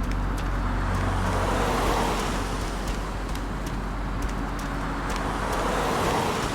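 Road traffic noise, swelling twice as vehicles pass by, over a steady low hum.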